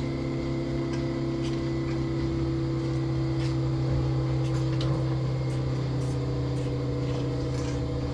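Steady hum of dairy-barn machinery running during milking, made of several constant tones, with faint scattered clicks.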